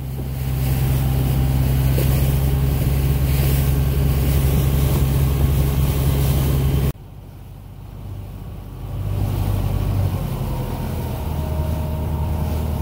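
Fishing ferry boat's engine running steadily under way, a deep hum with a hiss over it. About seven seconds in the sound drops abruptly, then swells back a couple of seconds later.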